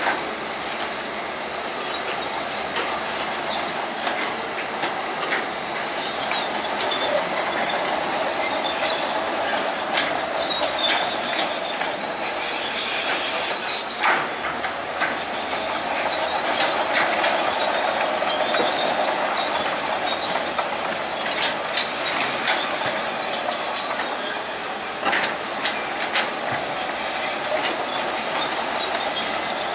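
Crawler bulldozer working: its engine running under a steady din of steel tracks clanking and squealing, with scattered sharp metallic clanks.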